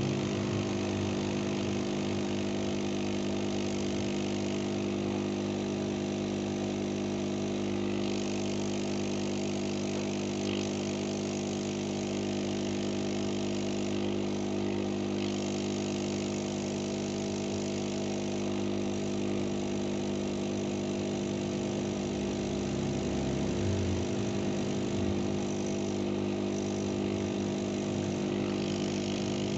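A small motor or blower running with a steady, unchanging hum.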